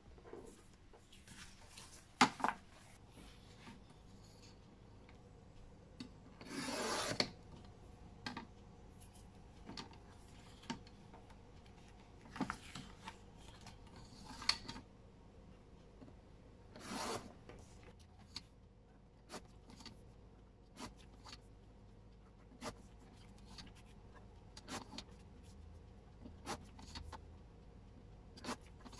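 Fiskars sliding paper trimmer cutting sticker sheets: the blade carriage is drawn along the rail in a handful of short cutting strokes, the longest about seven seconds in. Small taps and rustles of paper sheets being lined up on the trimmer and cutting mat come between the strokes.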